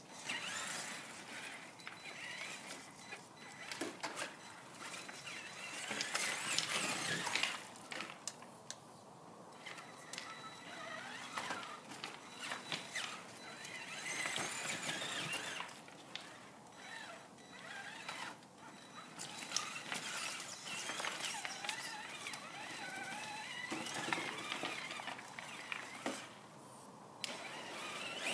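Traxxas Summit electric RC truck's motor and gearing whining, the pitch rising and falling with the throttle, along with its tyres on rock and gravel.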